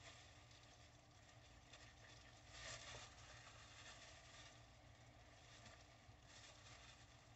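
Near silence, with faint handling noise from gloved hands pulling and cutting raw hog intestines on a table, and a slightly louder rustle about two and a half seconds in.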